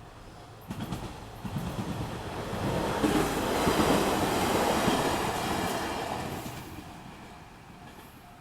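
A train passing over a railway level crossing, its wheels clattering over the rail joints, growing loud about three seconds in and fading by the end. The crossing's warning bell keeps ringing in an even rhythm, heard faintly as the train noise dies down.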